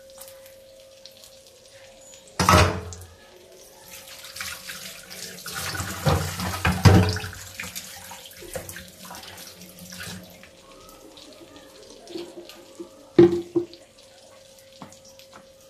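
A kitchen tap running into a sink for several seconds in the middle, with a sharp knock of a vessel about two and a half seconds in and another near the end.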